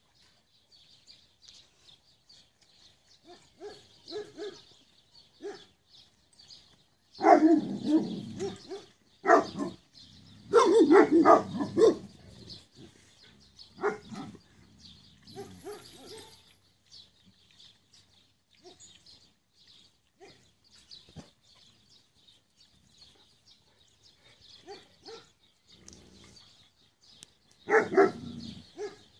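Cane Corso dogs barking in several short loud bursts, clustered about seven to twelve seconds in, with another near the end.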